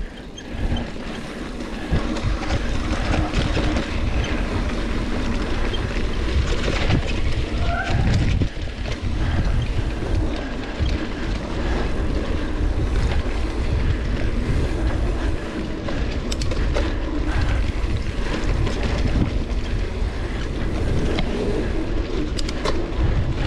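Mountain bike being ridden over a trail: a steady rumble with frequent rattles and knocks throughout.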